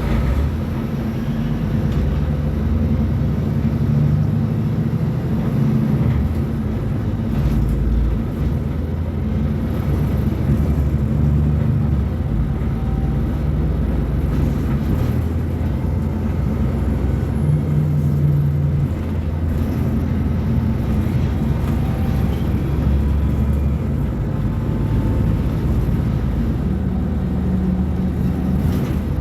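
Mercedes-Benz O500U bus's diesel engine running under way: a steady low drone whose pitch shifts up and down several times as the engine speed changes.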